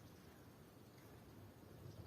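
Near silence: faint outdoor ambience with a low, even background rumble.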